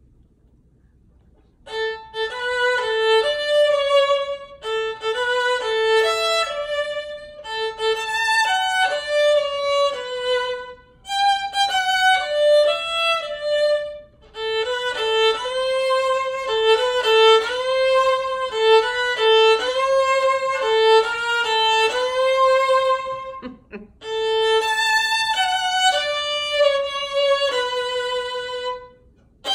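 Solo violin played with the bow by a child: a melody in phrases of held notes with vibrato, starting about two seconds in, with short pauses between phrases.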